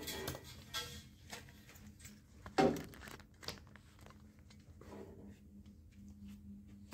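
A single sharp metallic clank about two and a half seconds in, among quieter knocks and scuffs, as a long steel pipe and sheet-metal strips are handled.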